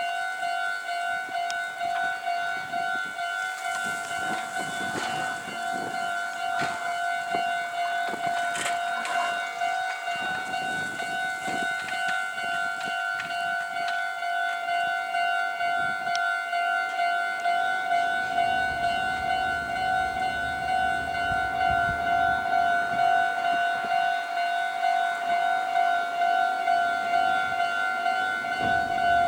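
Japanese railway level-crossing warning bell ringing steadily in a rapid repeating clang, signalling that a train is coming. From about two-thirds of the way through, the low rumble of an approaching Meitetsu 3500-series electric train builds beneath it and grows louder near the end.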